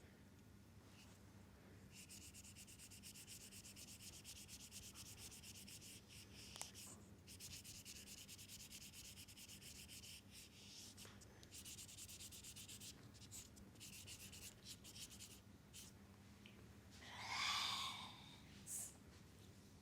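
Hands rubbing quickly back and forth over oiled skin in a leg massage: a soft, fast, even run of brushing strokes, broken by short pauses. A louder sound about a second long comes near the end.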